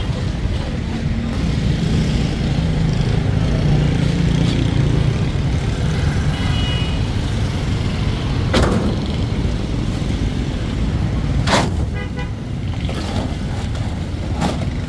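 Steady street traffic running, with a vehicle horn tooting briefly about six and a half seconds in. Two sharp knocks stand out, one a little past halfway and one about three seconds later.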